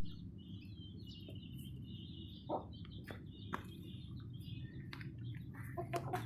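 Faint chirping of small birds over a low steady background hum, with a few sharp clicks.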